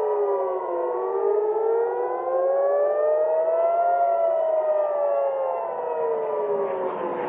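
Civil-defence air-raid sirens wailing. Several sound at once and out of step, each slowly rising and falling in pitch. They warn of an incoming missile attack.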